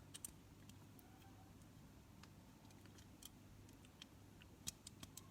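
Faint, scattered light clicks of small plastic model-kit parts being handled and pressed together, over a low steady hum.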